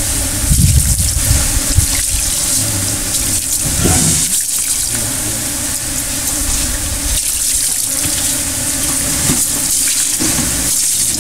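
Water poured from a plastic bucket splashing steadily over an elephant's head, with a low rumble in the first couple of seconds.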